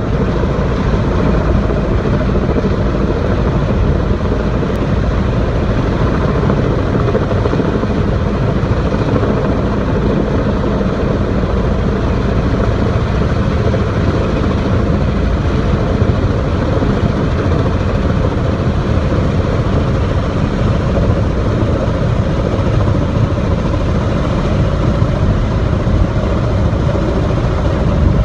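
Heavy-lift helicopter hovering and flying slowly overhead with an underslung load, its rotors and turbine making a loud, steady noise that does not let up.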